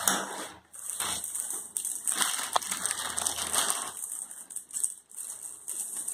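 Clear plastic packaging crinkling and rustling in quick, irregular crackles as a BiPAP mask's headgear is handled and pulled out of its bag.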